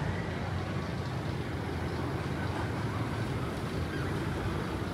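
Steady low rumble of outdoor ambience, with faint distant voices.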